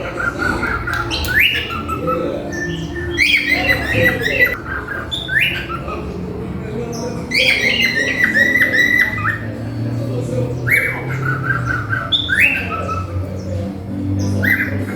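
Cockatiel singing a repeated whistled phrase, several times over: each phrase starts with a quick upward-sliding whistle and runs into a string of short warbling notes, with some harsher squawky notes mixed in.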